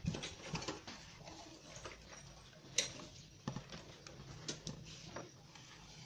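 Faint handling noises of plastic and rubber: scattered small clicks and rubbing as a hose is pushed onto the air outlet of a homemade air horn, with one sharper click about halfway through.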